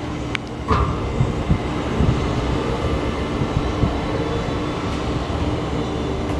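Cozzini 2,500 lb paddle mixer running in unload mode, its paddle shafts turning in the stainless trough with a steady mechanical rumble and a steady low hum. A sharp click and a short knock come in the first second.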